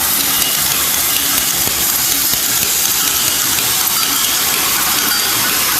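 Automatic plastic zipper slider mounting machine running steadily: a constant hiss with a low hum beneath it, typical of its vibratory bowl feeder and machine running together.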